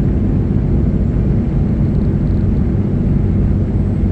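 Loud, steady vehicle rumble, with most of its weight in the low end and no change in pitch or level.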